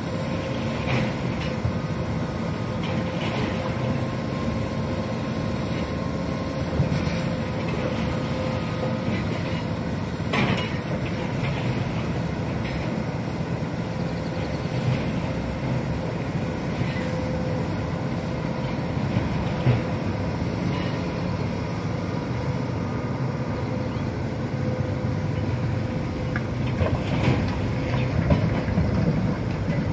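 Hitachi Zaxis 210F hydraulic excavator working: its diesel engine runs steadily with a steady whine, with scattered knocks and clanks, more of them near the end.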